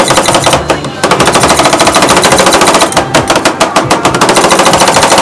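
Metal spatulas rapidly chopping and scraping ice cream on the cold steel plate of an iron-plate (rolled) ice cream stand: a fast, even clatter of many metal-on-metal strikes a second, with brief lulls about a second in and around three seconds in.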